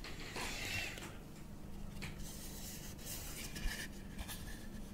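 Faint rubbing and handling noise of a 3D-printed plastic headphone holder being turned over in the hands, with a few soft ticks, over a low steady hum.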